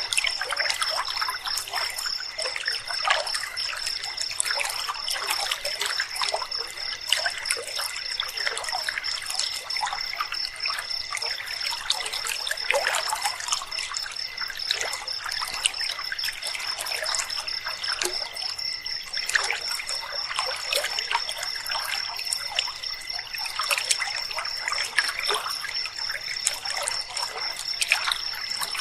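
River water trickling and babbling, with a steady high-pitched, rapidly pulsing trill of night insects running over it.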